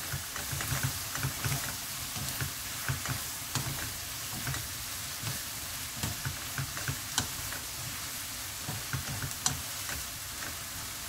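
Sweet potato stems sizzling as they are stir-fried in a frying pan and tossed with two wooden spatulas. Steady frying hiss throughout, with frequent soft knocks and a few sharp clicks of the spatulas against the pan.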